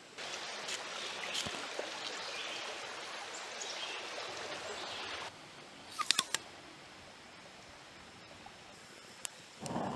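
Steady outdoor hiss with faint chirps for about five seconds, then quieter. A quick run of four or five sharp clicks comes about six seconds in, and one more click near the end.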